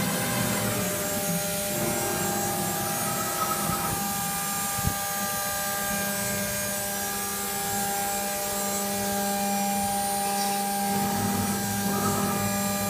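ino XP 6000 CNC aluminium profile machining centre running, its spindle giving a steady whine as it machines an aluminium profile, with one sharp click about five seconds in.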